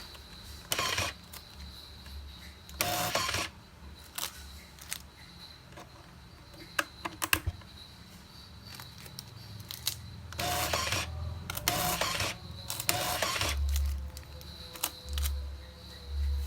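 ZCUT-9 automatic tape dispenser feeding out and cutting lengths of tape, each cycle a short mechanical whirr of about half a second, repeated several times. A few sharp clicks come between cycles.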